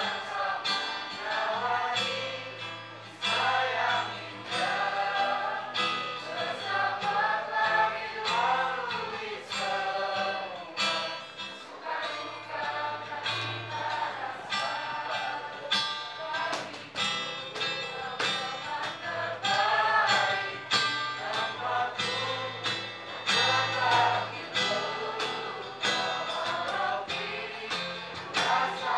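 Mixed youth choir singing, accompanied by acoustic guitar and a cajón keeping a steady beat.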